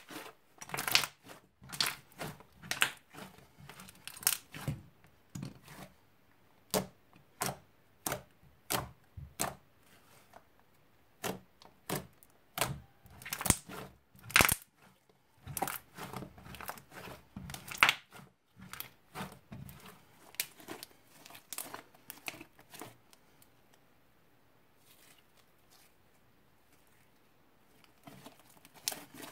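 Fluffy shaving-foam slime being squeezed, stretched and folded by hand, giving irregular sharp crackling pops and squelches. The pops thin out to near quiet for a few seconds near the end, then start again.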